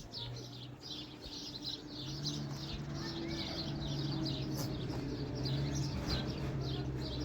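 Small birds chirping over and over, quick short calls with little pause between them. A low steady hum comes in about two seconds in and continues beneath the chirping.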